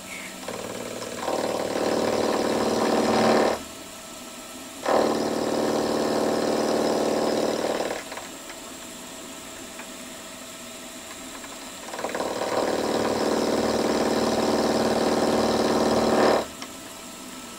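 Milling machine end mill taking a light skim cut across the end of a model steam engine's steam chest: three spells of cutting, each a few seconds long, starting about a second, five seconds and twelve seconds in, a steady pitched whine over the quieter hum of the running spindle in between.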